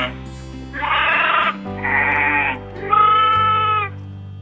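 Sheep bleating three times, each call about a second long, over background music.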